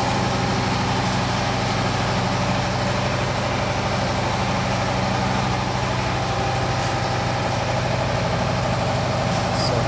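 Classic Vespa scooter's engine idling steadily.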